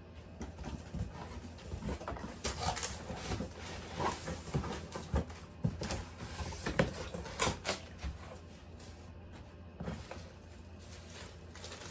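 Cardboard shipping box being opened by hand, its flaps folded back with scattered knocks and scrapes, then plastic-wrapped glass pot lids lifted out of it.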